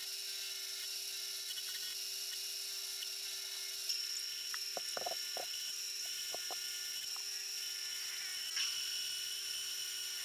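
Homemade lathe running, with a steady high whine from its motor and spindle while a boring bar cuts inside the bore of a spinning metal workpiece. The whine grows stronger about four seconds in, and a few short ticks follow over the next couple of seconds.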